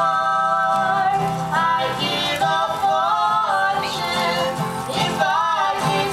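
Live acoustic duo performing a song: acoustic guitar with sung vocals, the singer holding long notes that waver in pitch.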